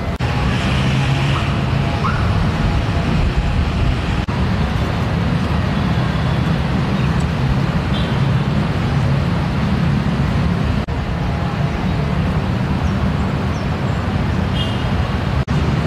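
Steady low background rumble, with a few brief dropouts.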